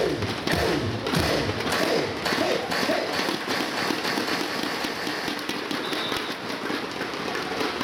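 Stadium spectators' hubbub with scattered short taps and thuds, and faint voices in the first few seconds.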